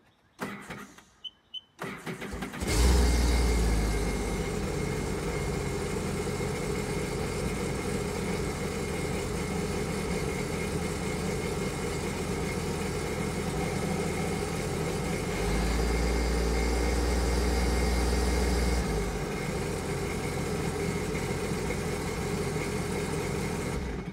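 2018 Sea-Doo RXP-X 300's supercharged Rotax 1630 ACE three-cylinder engine, started out of the water and run briefly after an oil change to circulate oil into the oil filter. After a couple of short beeps and a brief crank, it catches about two and a half seconds in and settles to a steady idle, louder for a few seconds past the middle, then shuts off suddenly near the end.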